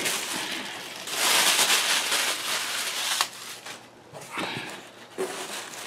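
Tissue paper rustling and crumpling as packing is pulled out of a cardboard box, loudest in a long stretch from about one to three seconds in, then quieter handling with a couple of light knocks.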